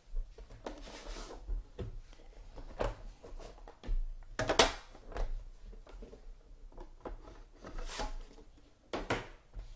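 Trading cards and their packaging handled on a table: irregular taps, slides and rustles, the loudest about four and a half seconds in.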